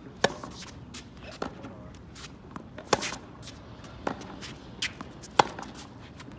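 Tennis balls struck with racquets in a crosscourt forehand rally. Three sharp, loud hits come about two and a half seconds apart, with fainter hits and ball bounces between them and shoes shuffling on the hard court.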